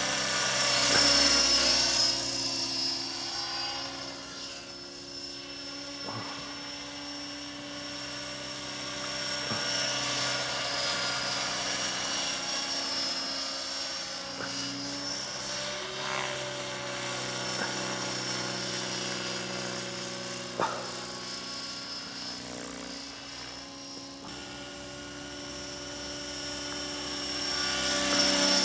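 Align T-Rex 600 radio-controlled helicopter flying overhead: a steady whirring rotor buzz with a high whine that swells louder in the first couple of seconds and again near the end as it passes closer. A single brief click about two-thirds of the way through.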